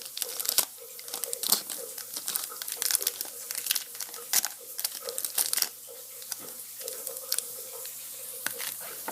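Foil Pokémon trading card booster pack wrapper being torn open and crinkled by hand, with sharp crackles coming thickest in the first six seconds and thinning out after.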